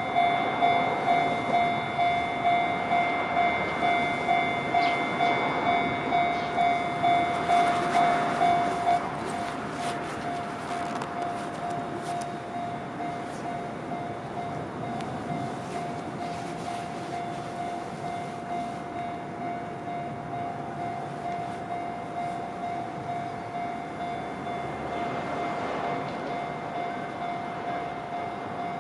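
Japanese level-crossing warning bell ringing steadily at about two strokes a second, louder for the first nine seconds or so and then quieter. A train runs past underneath it.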